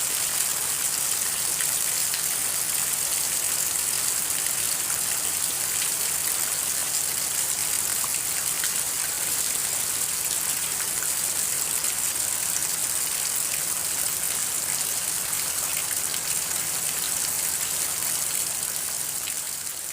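Steady rain falling: a continuous even hiss with faint scattered drop ticks.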